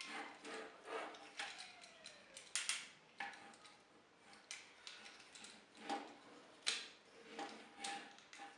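Hard plastic parts of a Transformers action figure clicking and knocking as they are rotated and folded into place by hand: about ten irregular clicks, a few with a short squeaky ring.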